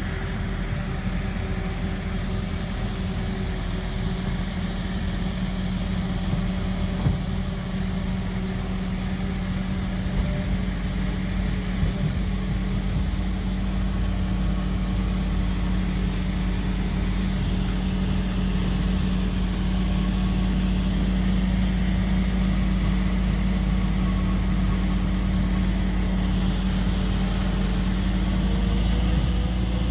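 A motor vehicle's engine running steadily at an even pitch, with a constant hiss of road and wind noise behind it.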